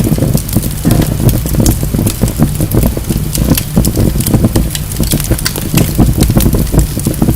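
Wood fire burning in a fireplace: a steady low roar of the flames with many sharp crackles and pops from the burning logs.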